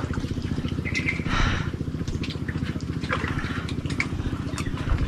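A small engine running steadily with a fast, even putter. A few light clicks and a brief rustle sit on top of it.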